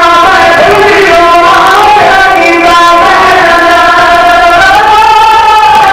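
Several men's voices loudly chanting a mourning elegy together into a microphone in long, held, wavering notes, as in masaib recitation at a majlis.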